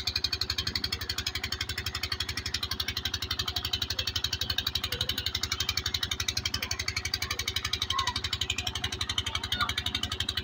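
Irrigation water pump's engine running at a steady, fast, even chug, with water gushing from the pump's outlet pipe into a concrete basin.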